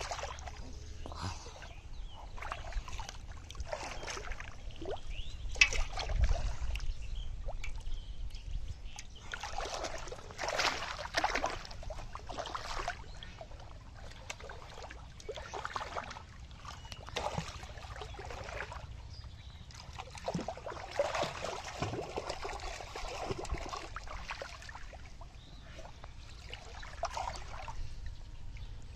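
Shallow muddy water splashing and sloshing in irregular bursts as a person moves and gropes through it on hands and body.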